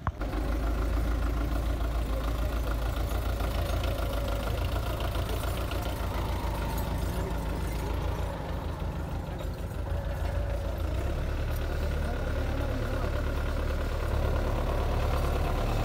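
Belarus 510 tractor's diesel engine running steadily under load while pulling a plough through the soil.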